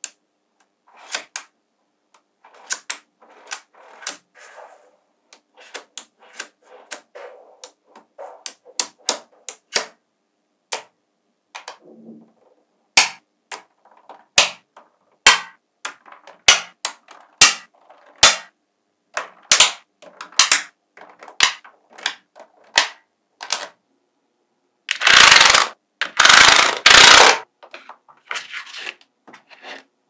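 Small magnetic balls clicking as they snap onto each other, one sharp click after another at an uneven pace. About 25 seconds in, three loud bursts of rattling follow over two and a half seconds.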